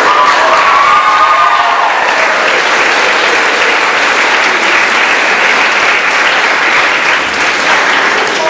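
Audience applauding in a hall, with a few voices cheering near the start.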